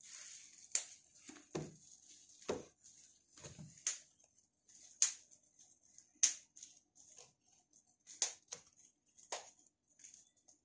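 Plastic seal wrap on a smartphone box being scored and torn open with a pen tip: irregular crinkling crackles and sharp clicks, a dozen or so spread unevenly.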